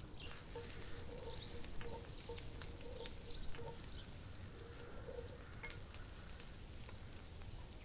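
Diced onion and garlic sizzling in hot olive oil in a cast iron pan, a steady sizzle dotted with small crackles and pops. Near the end a wooden spatula stirs them through the oil.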